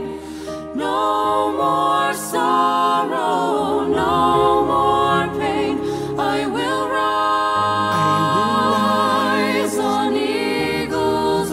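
Worship song: a choir of voices sings long held notes with vibrato over low sustained bass chords that change every second or two.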